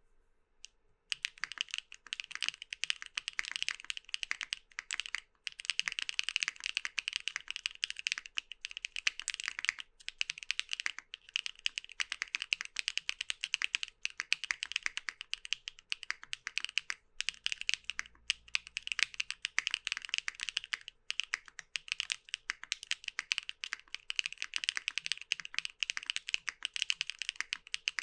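Continuous fast typing on a mechanical keyboard fitted with HMX Caramel Pudding V2 linear switches: a dense stream of keystroke clacks, starting about a second in, with a few brief pauses.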